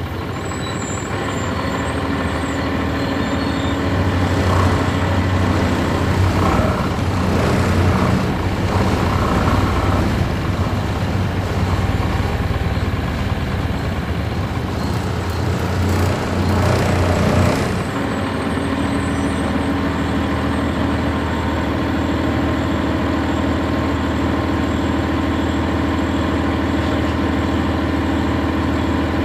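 Interior sound of a 1999 NovaBus RTS's Cummins ISC diesel: engine and road noise build up a few seconds in as the bus runs under way. About eighteen seconds in the noise drops off sharply with a short hiss of air, and the diesel settles to a steady idle.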